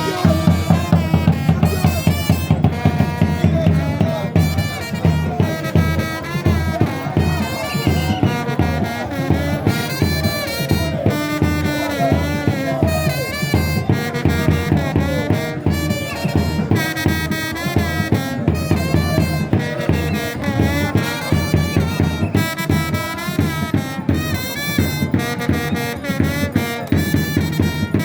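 Music with brass horns over a steady drum beat.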